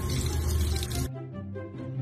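Tap water running and splashing into a sink over background music, cutting off suddenly about a second in and leaving the music alone.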